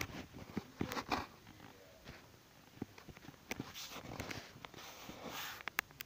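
Scattered clicks and knocks with bursts of rustling close to the microphone: handling noise.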